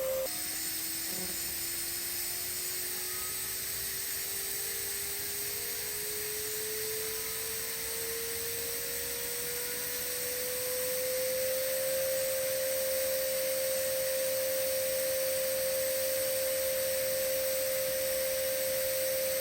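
TIG welding arc running during a fillet-weld pass: a steady electric whine over a hiss. Just after the start the whine drops in pitch, then it rises slowly over about twelve seconds and holds steady.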